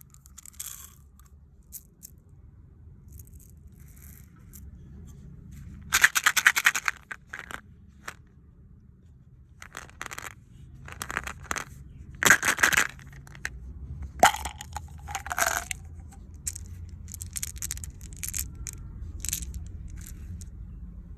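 Plastic candy packaging handled close up: short crinkles, taps and scrapes, with louder bouts of crackling and tearing about six seconds in, about twelve seconds in and again about fourteen to fifteen seconds in, over a steady low hum.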